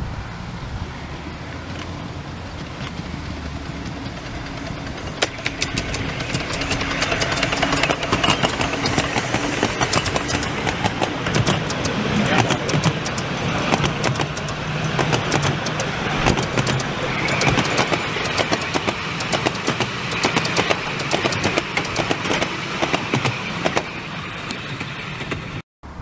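A miniature railway train approaching and passing close by: the wheels of the locomotive and carriages clatter and click rapidly over the rail joints. It gets louder about five seconds in and fades near the end as the train moves away.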